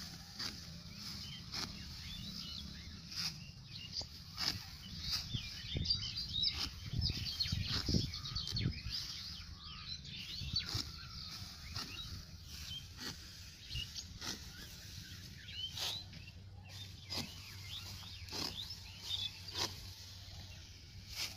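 Hand sickle cutting through dry rice stalks in repeated short strokes, with the rustle of the stalks being gathered, louder for a few seconds in the middle. Birds chirp in the background.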